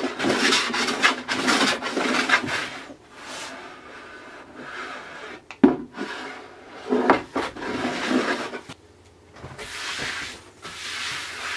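No. 4 hand plane smoothing a hardwood tabletop, its blade shaving the surface to flatten high spots. A run of quick strokes over the first three seconds, then a few single strokes spaced a second or more apart.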